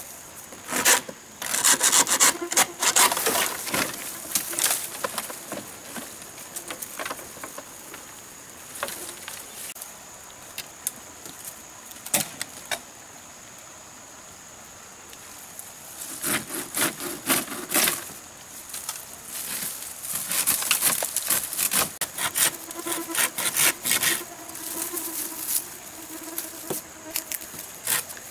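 Bamboo being pulled down and hacked with a blade: leafy canes rustle and stems knock and scrape in irregular bursts, busiest at the start and again in the second half. A steady high insect buzz carries on through the quieter middle stretch.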